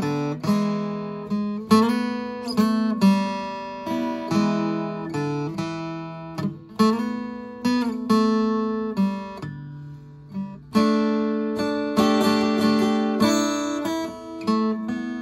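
Acoustic guitar played solo: chords strummed roughly once a second, each left to ring and fade, with a single low note held for about a second near the middle of the passage before the strumming resumes.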